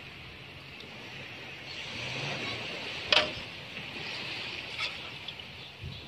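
Steady outdoor background hiss, with a sharp click about three seconds in and a lighter click near five seconds.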